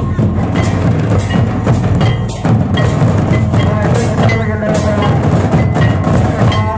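Music with loud, busy percussion and a short, bell-like note that keeps recurring over it.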